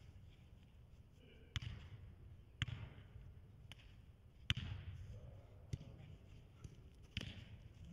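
A football struck by players' feet in a passing and first-touch drill: about six sharp kicks and touches, one to two seconds apart, each echoing around a large indoor hall.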